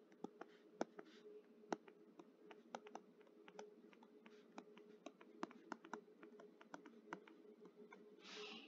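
Faint, irregular clicks and taps of a stylus on a tablet screen while handwriting, over a faint steady hum.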